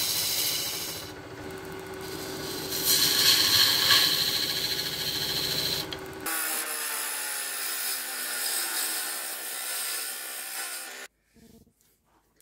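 Turning tool cutting the spinning monkey puzzle wood on a lathe: a loud rasping scrape in two bouts over the first six seconds. Then the lathe runs on steadily with the tool off the wood, until the sound cuts off suddenly near the end.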